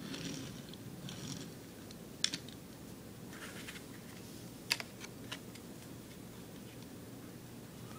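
Hands handling a Hot Wheels die-cast toy car and its plastic blister package on a wooden table: light plastic rustles and a few sharp clicks and taps, the loudest about two seconds in and again near five seconds in.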